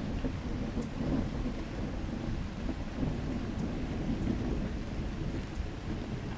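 Thunder rumbling low and steady, with rain falling.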